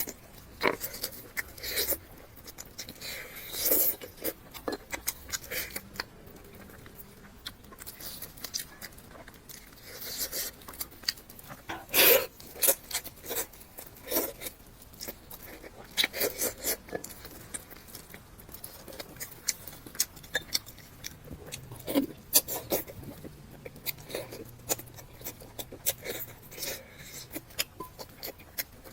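A person eating close to the microphone, mukbang-style: biting and chewing, with irregular sharp mouth clicks and smacks.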